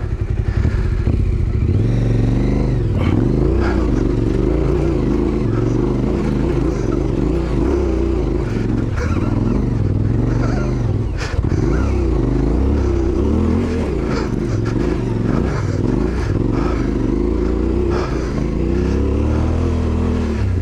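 Adventure motorcycle's twin-cylinder engine pulling away about two seconds in, then revving hard under load up a steep, loose dirt climb. Its pitch rises and falls with the throttle as the rider fights for traction, with stones clattering under the tyres.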